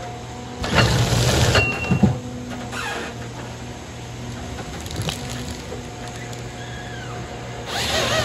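Forestry harvester's engine running steadily while the harvester head feeds a felled log through its rollers and delimbing knives, with loud rushing and crackling for over a second about a second in. Near the end the head's chainsaw bites into the log for a cross-cut, with a sudden loud burst of noise.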